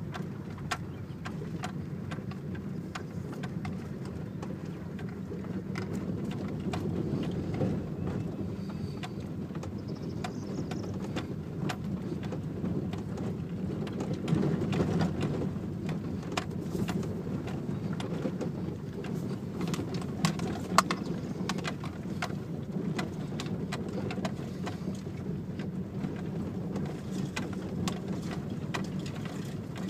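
Car driving along a rutted dirt track, heard from inside the cabin: a steady low rumble of engine and tyres with scattered clicks, knocks and rattles throughout, one sharper knock about two-thirds of the way through.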